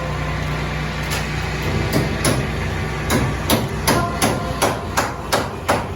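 Hammer blows on a hard surface: a few scattered strikes, then a steady run of about three blows a second through the second half, over a steady low engine-like hum.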